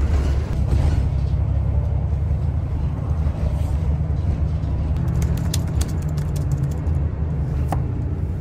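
Low, steady engine and road rumble heard from inside a moving city bus, with scattered sharp clicks and rattles in the second half.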